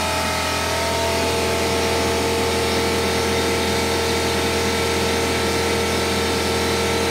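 Porter Cable 6-gallon air compressor running steadily under load, its pump working continuously while it feeds air through a hose into a tire. It makes an even hum with a steady hiss.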